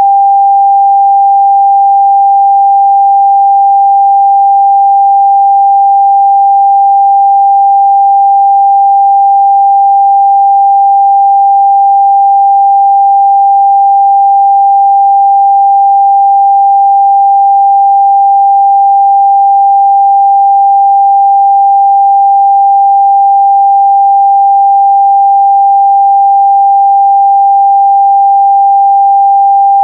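A steady, loud 794 Hz pure sine-wave test tone, one unchanging pitch with no other sound.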